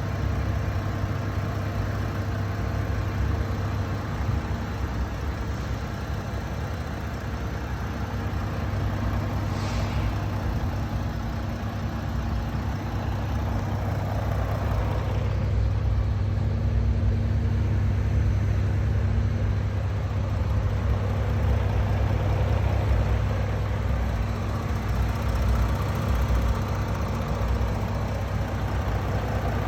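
Audi S4 3.0 TDI V6 diesel engine running steadily at idle, a low even hum.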